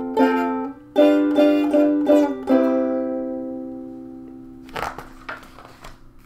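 Ukulele strummed in a quick run of chords, then a last chord left ringing and fading away. Near the end, a book page rustles as it is turned.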